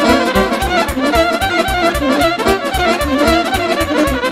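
Instrumental Romanian party music (muzică de petrecere): a fast, ornamented violin melody over an even beat of about four bass pulses a second.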